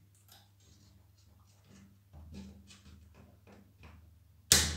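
Small handling sounds: faint ticks and scrapes of a small screwdriver and a little spring being worked into a plastic Nilfisk G3 pressure-washer spray gun, then one sharp click near the end.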